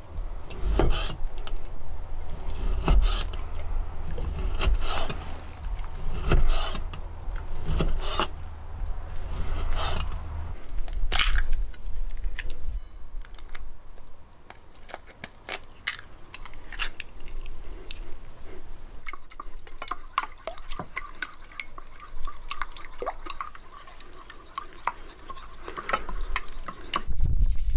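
A knife chopping on a wooden cutting board, about one cut a second with low thuds, for the first ten seconds or so. After a quieter stretch of handling, eggs are whisked in a small steel pot, giving a fast run of light metal clinks.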